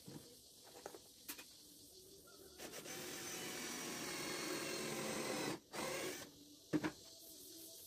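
Cordless drill-driver driving a screw into a pine frame: the motor runs for about three seconds with its pitch slowly rising, stops, gives a short second burst to seat the screw, then a sharp knock. A few light handling knocks come before it.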